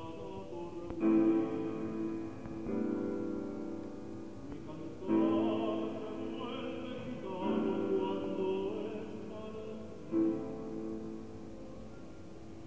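Grand piano playing strong sustained chords, each struck and left to ring, with a man singing over it in a classical style with vibrato.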